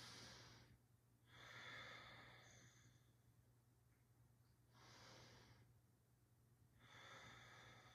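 A woman breathing slowly and deeply, faint: two full breaths, each a soft inhale and a longer exhale.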